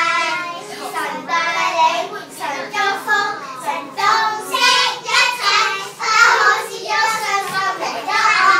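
A group of young girls singing a song together in unison, in short phrases.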